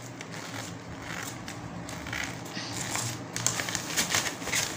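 Rustling and crackling of a nylon carry bag as hands open it and rummage inside, with many small, irregular crinkles.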